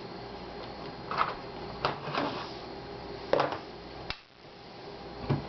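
A handful of sharp plastic clicks and knocks, a second or so apart, as the laptop is handled and its battery is unlatched and taken out.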